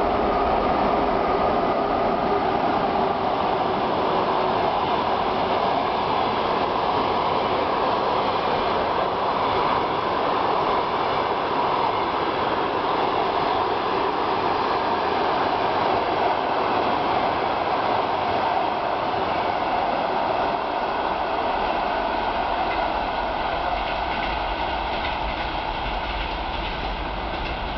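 Passenger train of Russian coaches behind an electric locomotive passing close on the adjacent track: a steady noise of wheels running on the rails, easing off over the last few seconds.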